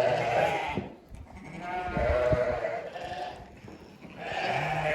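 Sheep bleating: three drawn-out bleats, the first tailing off just after the start, the second about a second and a half in, the third beginning near the end.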